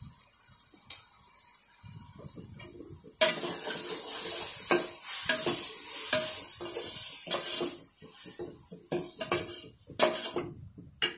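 A metal spoon scraping and clinking against stainless-steel bowls as chilli powder is spooned out, with sharp clinks scattered through. From about three seconds in, a steady high hiss runs under the clinks.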